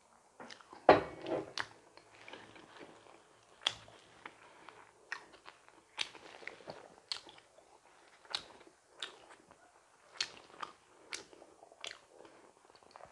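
Close-miked eating of a donut: one loud bite about a second in, then chewing with wet smacking and clicking mouth sounds every half second or so.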